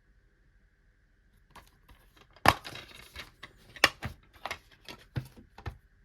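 Plastic DVD cases being handled: a run of sharp clicks and knocks at uneven spacing, the loudest about two and a half seconds in and another about a second later.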